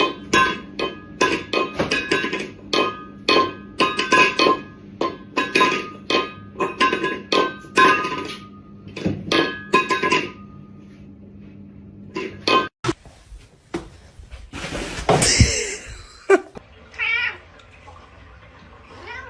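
Plucked guitar music with a steady beat for about the first ten seconds. Then a few knocks, a short rush of noise, and a cat meowing briefly near the end.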